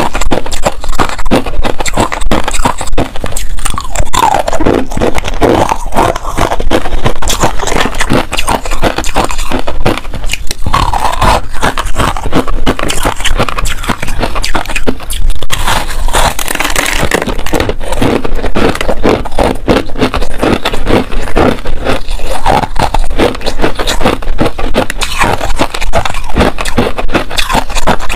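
Pink freezer frost and hard ice being bitten and chewed right at close lapel microphones: a dense, continuous crunching and crackling that never lets up.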